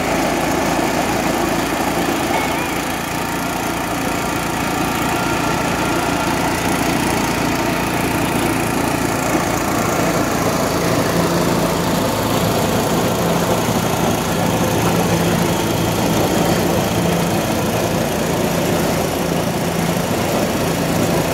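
Small stationary engine driving a sugarcane juice crusher, running steadily as cane stalks are fed through its rollers.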